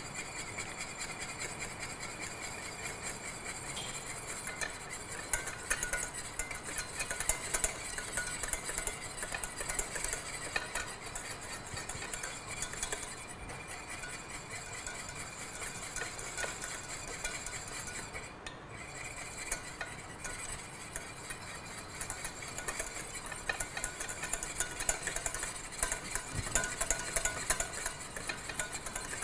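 Wire whisk beating béarnaise sauce in a stainless steel saucepan: a rapid, continuous scraping and ticking of the whisk wires against the pan as clarified butter is ladled in off the heat to emulsify the sauce.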